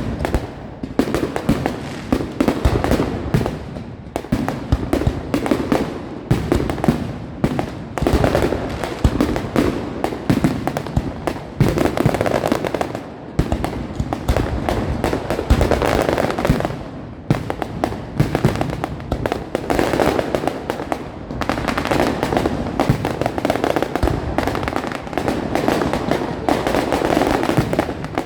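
Fireworks display: a continual barrage of shell bursts and crackling, many bangs a second with no pause.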